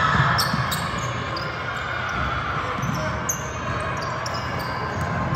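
Basketball game play on a hardwood court: the ball bouncing, with several short high sneaker squeaks, over the steady murmur of a gym.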